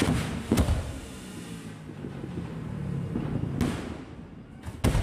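Fireworks going off: a sharp bang under a second in, a fainter crack past the halfway mark and another loud bang near the end, over a low rumble.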